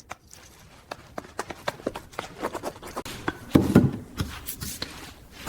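Small clicks, taps and rustles of objects being handled and moved about, with a louder cluster of knocks and thuds about three and a half seconds in.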